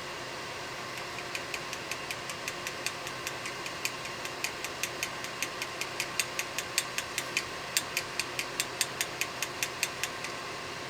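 Rapid, evenly spaced light clicks or taps, about four to five a second, over the steady hum of a hot-air rework gun's fan. The taps start about a second in and stop shortly before the end.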